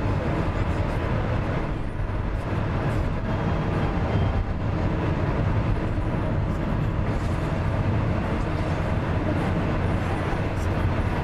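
Steady road and engine noise of a car driving at highway speed, heard from inside the cabin: a constant low rumble with tyre hiss.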